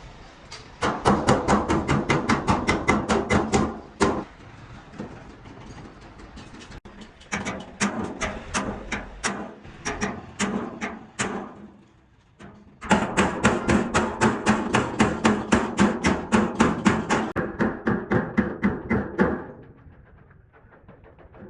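Rapid hammer blows on a dented truck fuel tank, about five a second, in three long runs with short pauses between them, as the bent metal is beaten back into shape.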